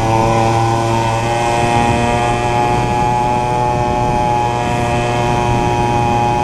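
49cc two-stroke mini cross (pit bike) engine running at high, steady revs while riding. The pitch settles just after a rise in revs and then holds nearly constant.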